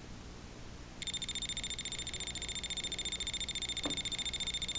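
Voltage-tester screwdriver's beeper going off: a high, rapidly pulsing electronic beep. It cuts out at the start and comes back on about a second in. The tester is sounding as if it senses live voltage, which the owner puts down to a spirit.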